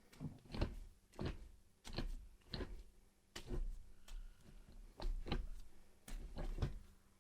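Repeated clunks and clicks of a six-speed manual gear shifter, fitted with a titanium shift knob, being moved through the gears by hand, roughly one or two knocks a second.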